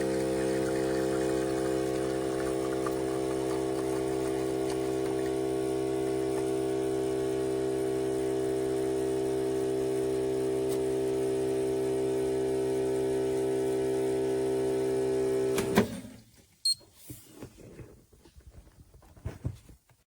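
Espresso machine's pump running with a steady buzzing hum, stopping abruptly with a click about three quarters of the way through. A few faint clicks and knocks follow.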